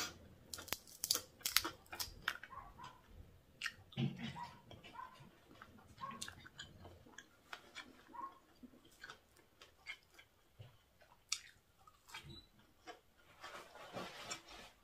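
Chewing crispy fried squid: a quick run of crunchy crackles in the first few seconds, then slower, scattered chewing clicks.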